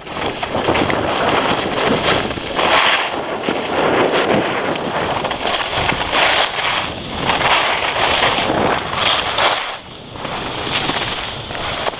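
Wind rushing over the microphone of a handheld camera carried on a downhill ski run, mixed with the hiss and scrape of skis on snow. It swells and eases in surges and drops briefly near the end.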